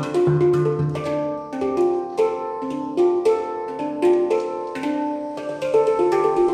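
Handpan being played: a slow melody of struck steel notes, a few strikes a second, each ringing on and overlapping the next, over a deeper note.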